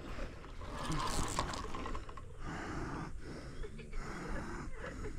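Heavy, rhythmic breathing of an angler straining against a big hooked carp, close to the microphone, with rustling and handling noise.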